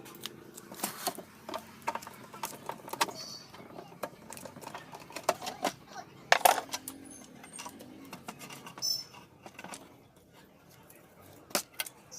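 Clicks, clinks and light knocks of a mixer grinder being taken apart by hand, its screws and metal and plastic parts handled and set down, with one louder knock about six seconds in.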